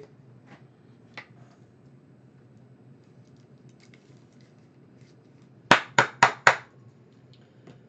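Four quick, sharp knocks in a row about five and a half seconds in, preceded by a couple of faint clicks.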